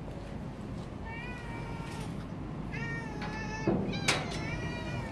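Cats meowing repeatedly, several calls in a row, with two sharp knocks close together about three and a half seconds in.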